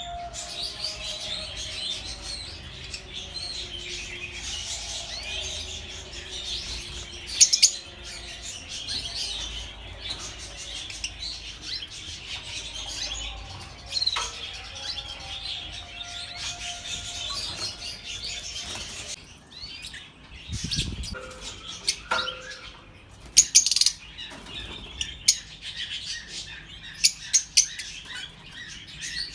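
Masked lovebirds chattering and chirping continuously, with loud, sharp, shrill calls breaking out about a quarter of the way in, again later, and several in quick succession near the end.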